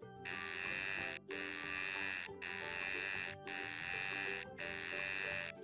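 A harsh, buzzy call offered as the deer's call, repeated five times in even bursts of about a second with short breaks between, over light background music.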